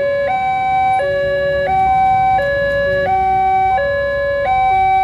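Railway level-crossing warning alarm: an electronic signal stepping back and forth between a few steady tones in a pattern that repeats about every one and a half seconds, sounding while the barrier is down for an approaching train. A low rumble of road traffic runs underneath.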